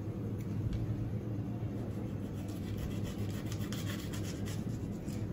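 Crinkling and scraping of a small plastic sachet being cut open by hand, a quick run of faint ticks and rustles in the second half, over a steady low hum.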